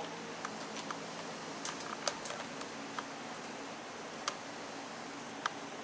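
Scattered small sharp clicks and taps as a plastic speed sensor on the wiring harness is handled and pushed into its hole in a BMW ZF5HP24 automatic transmission, over a steady hiss.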